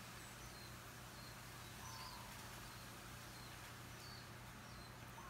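Quiet room tone with a steady low hum and faint, scattered short high chirps of birds.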